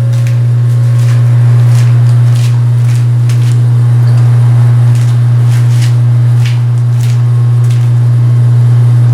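A loud, steady low hum from a running machine, unchanged throughout, with a few faint clicks over it.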